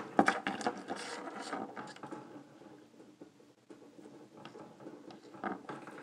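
Small clicks and light rustling from fishing line being wrapped and pulled through a metal three-way swivel by hand against a tabletop. It is busiest in the first two seconds, then goes quieter with a few faint ticks.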